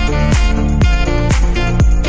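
Background music: an upbeat track with sustained chords over a steady beat, about two beats a second.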